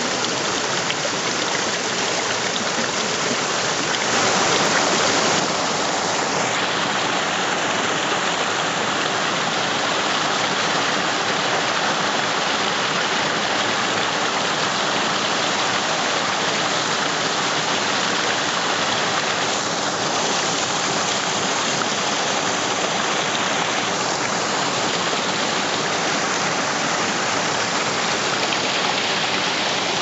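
Small forest creek cascading over rocks and fallen logs: a steady rush of white water, briefly louder about four seconds in.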